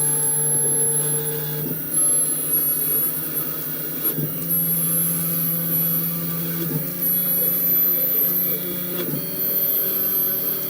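CNC lathe running through its program: a steady motor whine with overtones that jumps to a new pitch about every two and a half seconds as each machining move begins, with a faint high whine coming and going.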